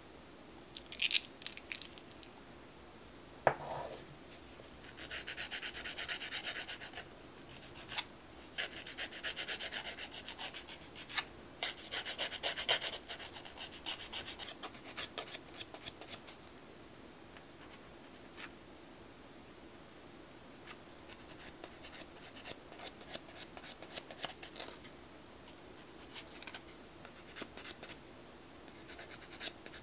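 A nail file rasping across a fingernail in runs of quick back-and-forth strokes, with pauses between runs. A few sharp clicks come before the filing starts.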